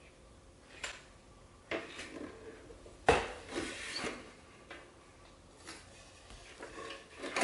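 Handling noise from an air purifier's wooden base and white plastic housing: a few scattered light knocks and clatters, with one louder knock about three seconds in.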